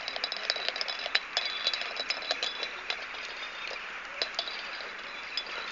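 Fire on a burning van crackling and popping: irregular sharp cracks, several a second, over a steady hiss.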